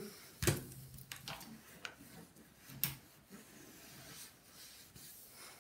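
Paper towel handled against a plastic CRT monitor case: a few sharp clicks and light taps with faint rustling, the wiping having eased off.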